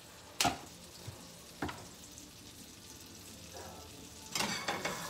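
Butter sizzling in a frying pan on a gas burner, a faint steady hiss that turns into louder crackling near the end as the pan is handled. Two sharp knocks come in the first two seconds.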